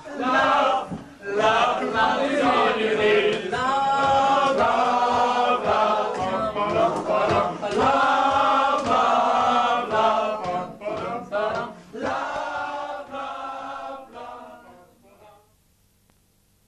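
A group of male voices singing together in chorus, stopping about fifteen seconds in and leaving near silence.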